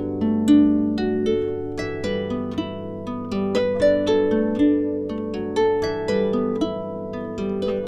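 Background music of plucked harp-like strings playing a flowing melody, notes starting sharply and fading, a few per second.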